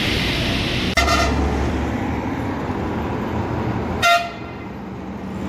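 Hino Road Bullet bus horn giving two short toots about three seconds apart, over a steady engine rumble and street traffic.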